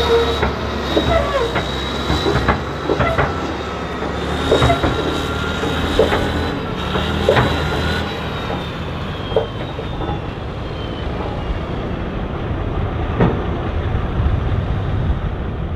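Vintage Caterpillar diesel crawler tractor running steadily under load while towing a scraper, with a steady high whine over it and irregular squeaks and clanks from the steel tracks and scraper linkage every second or two.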